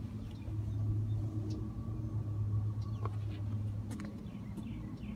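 A vehicle engine idling with a steady low hum that eases a little near the end, and a few faint bird chirps above it.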